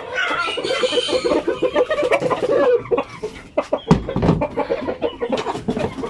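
Shamo-cross chickens clucking rapidly and excitedly at feeding time, hungry birds reacting to feed being brought in. About four seconds in there are several sharp knocks and a low thump.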